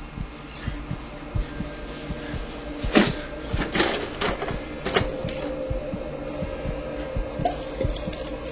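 Sharp knocks and clinks of bottles being handled, a few seconds in, over a fast run of low thuds and a steady held tone.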